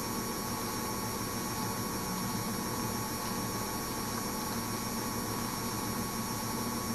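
Steady low hum with a few faint steady tones, from a Soba front-loading washing machine standing with its drum at rest at the end of its wool cycle.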